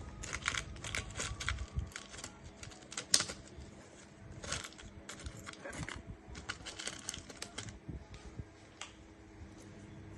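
Irregular light clicks and taps in quick clusters, like small tools and parts being handled on a workbench, over a faint steady hum.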